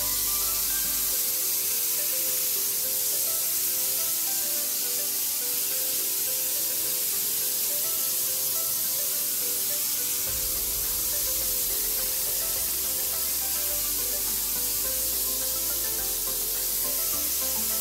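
Steady hiss of pesticide spray from a high-pressure spray wand misting melon plants, with background music playing under it.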